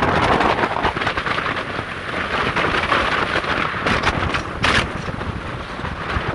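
Strong wind buffeting the microphone in gusts, a rumbling rush with a few short crackles about four seconds in.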